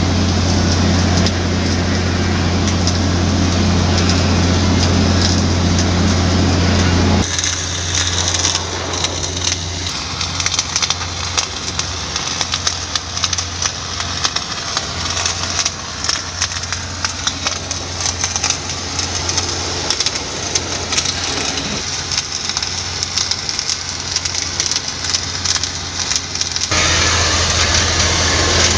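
Automatic arc welding on a large-diameter pipe butt joint: a continuous crackle of sharp ticks. A steady low machine hum dominates for about the first seven seconds, drops away so the crackle stands out, and comes back near the end.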